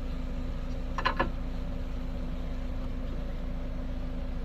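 Two light metallic clicks about a second in as the Toyota Yaris front brake caliper is fitted back over the new pads, over a steady low mechanical hum.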